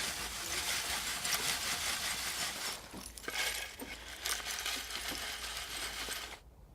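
Scraping and clinking of burnt debris being dug and sifted through ash: many small metallic clicks over a rough scratching, which cuts off abruptly near the end.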